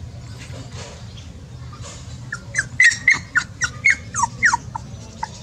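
Young puppy whimpering: a quick run of about a dozen short, high squeaks packed into two seconds in the middle, several sliding down in pitch.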